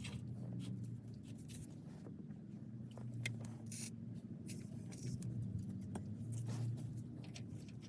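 Scattered light clicks and scrapes of hands working on metal parts, over a low steady hum.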